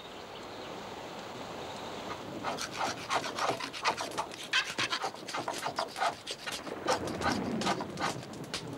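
A wood fire hissing softly under an iron cauldron. Then, from about two and a half seconds in, quick irregular scraping strokes of a knife carving wood.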